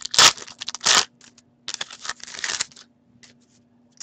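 A trading card pack wrapper is torn open with two sharp rips in the first second. The cards are then slid out and handled, rustling against each other for about a second around halfway.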